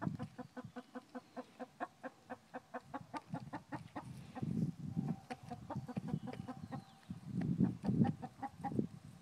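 Hens feeding from a cardboard bucket: a quick, even run of beak pecks on the bucket, about five a second, for the first four seconds, then low clucking from the flock with a drawn-out note in the middle.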